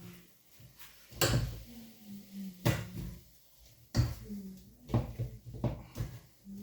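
Kitchen clatter: a series of sharp knocks and clunks of utensils and cupboards, a second or so apart, with smaller knocks in between.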